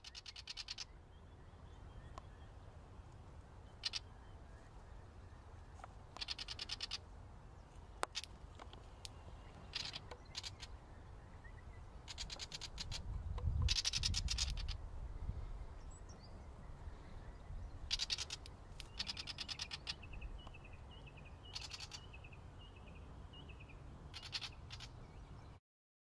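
A small bird's rapid chattering calls in short bursts of about half a second to a second, repeated every few seconds, with a few softer chirps near the end. A low wind rumble runs underneath and swells in the middle.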